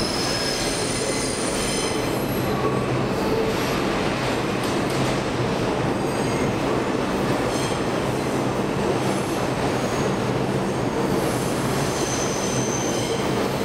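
New York City subway 6 train of R142A cars running through the station without stopping and away into the tunnel. Its wheels squeal in high thin tones that come and go over a continuous rumble of wheels on rail along the curving track.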